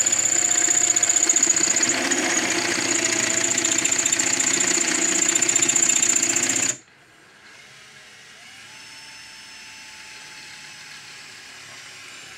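A handheld electric power tool runs steadily with a high whine, then cuts off abruptly about seven seconds in. A faint steady hum follows.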